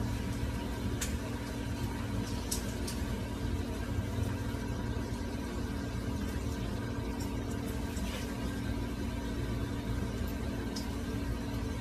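A steady low machine hum made of several fixed tones, with a few faint ticks.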